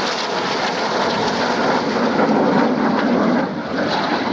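Red Arrows BAE Hawk T1 jets flying a display manoeuvre: steady, loud jet engine noise with a slight dip about three and a half seconds in.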